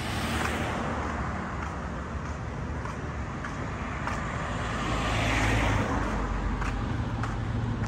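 Street traffic: a car drives past, loudest about five and a half seconds in, over a steady low rumble.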